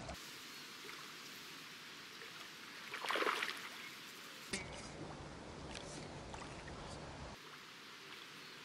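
Faint rush of river water, with one brief louder splash about three seconds in, as a hooked carp is played toward the bank.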